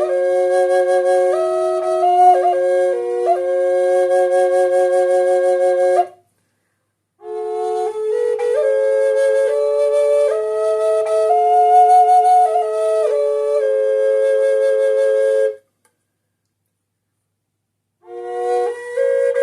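Native American triple drone flute playing, with no reverb or effects: a steady held drone note sounds under a melody that steps between notes above it. It comes in two phrases with a short silent break after the first, and after a longer silence a third phrase begins near the end.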